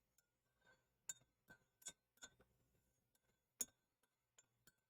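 Faint, irregular clinking of a spoon against a coffee cup while stirring, about a dozen light taps with two louder ones.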